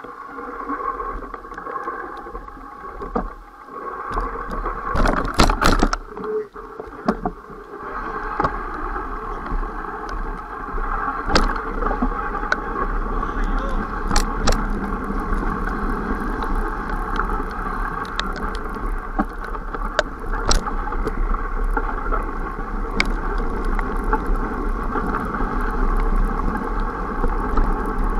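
Mountain bike riding fast down a wet, muddy trail, heard from a camera mounted on the bike: a steady noise of tyres and air moving past, with sharp knocks and rattles as the bike hits bumps, the loudest cluster about five to six seconds in.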